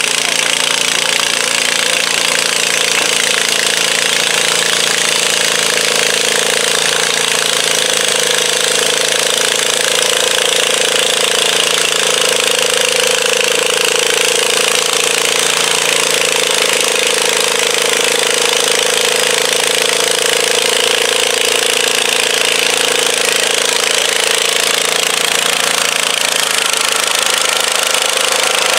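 John Deere garden tractor engine running flat out under load as it drags a weight-transfer pulling sled: a loud, steady drone that holds without a break.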